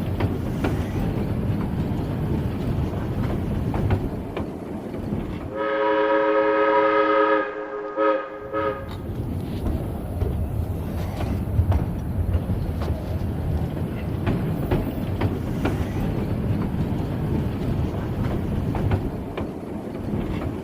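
Narrow-gauge train running on the rails, a steady rumble with the clicking of wheels over rail joints. About five and a half seconds in, the locomotive sounds a long chord-like warning signal of several tones, held for about two and a half seconds, then a short second blast.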